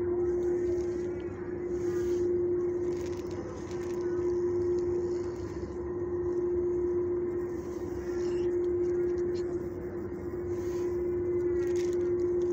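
Steady mechanical hum on one constant pitch, swelling and dipping a little every couple of seconds over a low rumble.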